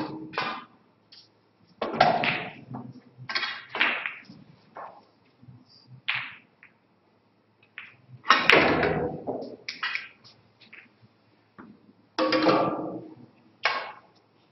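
Snooker balls clicking and knocking in an echoing hall, with about a dozen sharp hits spread through. The loudest comes a little after eight seconds in, as the cue ball is struck and the green is potted.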